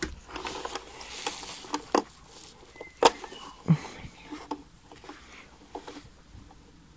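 Handling noise from inside an Eta Neptun vacuum cleaner's red plastic housing as wires and their connectors are pulled and moved: scattered clicks, knocks and plastic rustling, the sharpest click about three seconds in.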